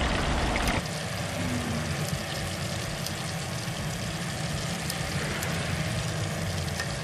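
Chicken wings deep-frying in hot oil in a cast iron Dutch oven: a steady sizzle with fine crackling.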